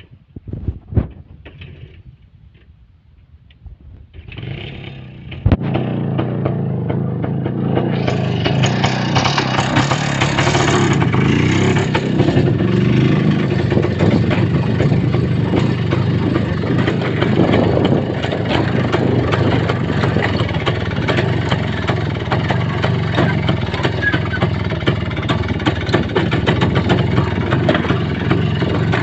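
A few knocks, then a vehicle engine starts about five seconds in and runs steadily, getting louder about eight seconds in as it moves off.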